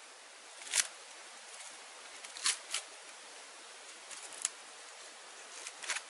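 Dry kindling sticks and bark strips being handled and laid into a stone fire ring: about six short, sharp cracks and clicks, the first, about a second in, the loudest, over a steady hiss.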